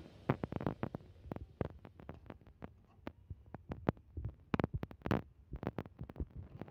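Irregular soft knocks and pops from a wok of chicken stew being cooked down, a few each second.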